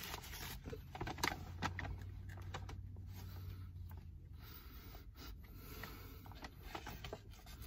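Faint crinkling and rustling of a foil sandwich wrapper being peeled back and handled, in short scattered bursts, over a low steady hum.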